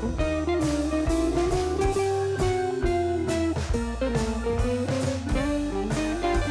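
Background music: a blues-style electric guitar over a drum kit with a steady beat.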